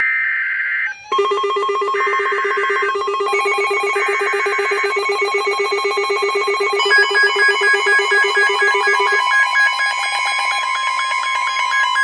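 Emergency Alert System warning tones: three short buzzing data bursts of the digital header, about a second apart, over a rapidly pulsing, ringing multi-tone alert signal. The lowest tone drops out about nine seconds in while the higher tones keep pulsing.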